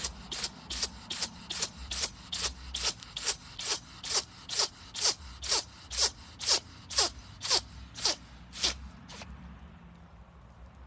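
An animal sneezing in a fast, even run of about twenty short, breathy sneezes, a little over two a second, which stop about nine seconds in.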